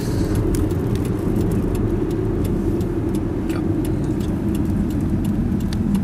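A car driving, heard from inside the cabin: a steady low rumble of engine and road noise, with faint scattered ticks.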